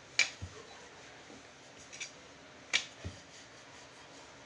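Wooden rolling pin rolling out chapati dough on a metal plate, clicking against the plate: two sharp clicks about two and a half seconds apart, each followed by a softer low knock, with a few fainter ticks between.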